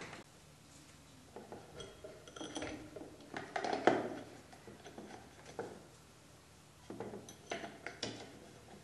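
Light knocks and clinks of wooden parts and small metal fittings being handled as a Singer sewing machine cabinet's wooden frame is fitted onto its hinged tabletop. The sounds come in a cluster about a second in and again near the end, loudest about four seconds in.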